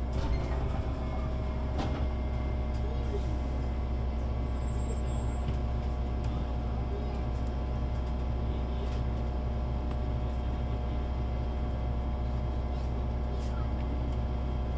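DAF diesel engine of a Solaris Urbino 18 IV articulated bus running steadily, its drone holding one unchanging pitch, with a sharp click about two seconds in.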